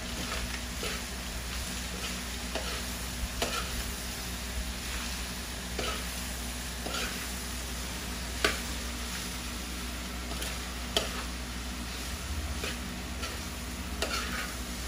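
Diced pork offal sizzling as it sautés in a wide metal pan, stirred with a metal spoon that scrapes and clinks against the pan at irregular moments. The sharpest clinks come a little past halfway and again about three quarters in.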